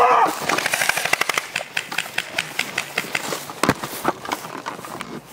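Airsoft gun firing a rapid full-auto burst of evenly spaced sharp clicks for about a second, then scattered single clicks and shots that grow fainter.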